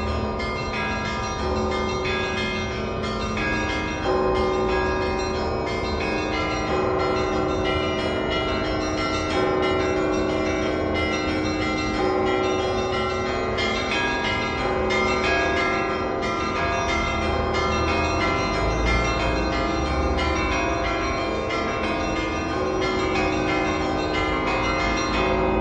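Church bells of St. Isaac's Cathedral, an Orthodox bell peal: many bells of different pitches struck in quick succession, their tones overlapping and ringing on without a break. It is the ringing that calls to the evening service.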